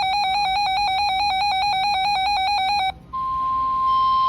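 RadioShack 12-254 weather radio sounding its built-in alert: a loud electronic tone warbling rapidly between two pitches. It cuts off about three seconds in. After a brief pause the NOAA Weather Radio steady single-pitch warning tone comes through the speaker with hiss, announcing an emergency alert, here a flash flood warning.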